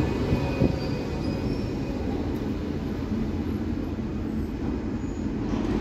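Berlin U-Bahn train braking to a stop at the platform: a steady low rumble with a single clunk about half a second in and a faint squeal from the wheels and brakes, settling as the train halts.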